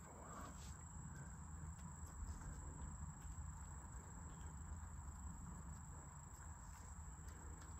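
Quiet outdoor ambience: a steady high-pitched insect drone over a low rumble, with a few faint ticks.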